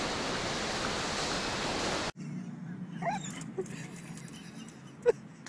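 A dog whining and yipping in a few short cries, then one sharp bark near the end. Before that, a steady hiss of recording noise cuts off suddenly about two seconds in.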